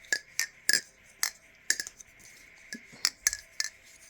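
Aluminium-handled Thomas Balisong Refault butterfly knife being flipped: about ten sharp metallic clacks with a short ring as the handles swing around and strike each other.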